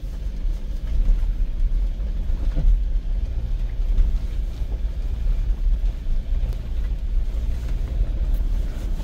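Jeep driving slowly up a rough dirt-and-gravel track, heard from inside the cab: a steady low rumble of engine and tyres on the uneven surface, with a few light knocks.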